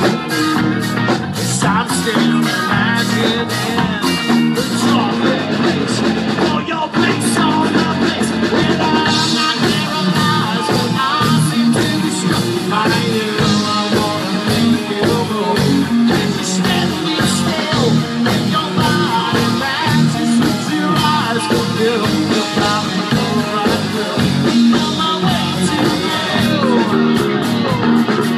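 Live rock band playing loud: electric guitars over bass and drums with a sung vocal line.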